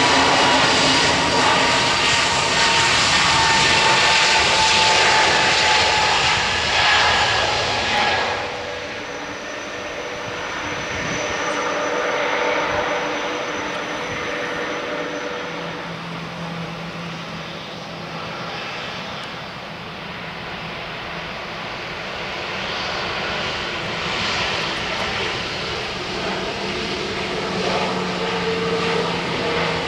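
Twin-engine jet airliners on the runway, first an Airbus A321 and then Boeing 737-800s. The first is loud, with several high whining fan tones over the roar. About eight seconds in the sound drops abruptly to a quieter, steady jet engine noise with low humming tones.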